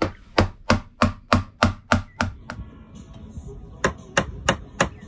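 Claw hammer striking a wood chisel, cutting out wood around a deck hatch frame: about eight sharp blows at roughly three a second, a pause, then four more near the end.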